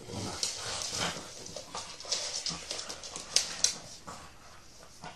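Cavalier King Charles Spaniel nosing and pushing a hand cream container about on a wooden floor: irregular short scrapes and knocks, mixed with the dog's own soft noises.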